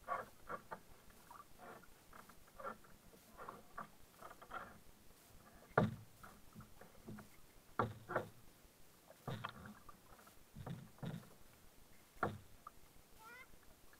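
A kayak paddle dipping into calm water: irregular splashes and drips, with several louder knocks about every second or two later on. Heard close up through the plastic hull of a sit-on-top kayak.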